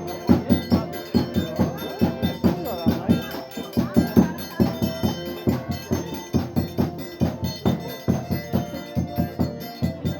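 Festive music with a fast, steady drum and percussion beat under sustained melodic notes.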